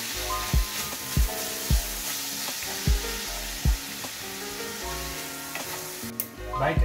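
Minced meat sizzling as it browns in a cast-iron skillet, stirred with a silicone spatula, with background music with a steady beat underneath. A brief clatter about six seconds in.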